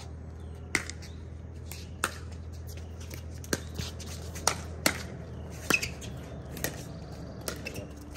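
A pickleball doubles rally: paddles hitting the hard plastic ball, along with its bounces on the court. The result is a string of sharp pops roughly a second apart, coming quicker from the middle on, over a steady low hum.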